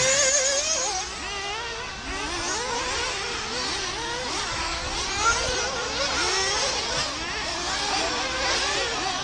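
Several 1/8-scale nitro RC buggies racing together, their small two-stroke glow engines making many overlapping whines that rise and fall in pitch as the cars accelerate and back off.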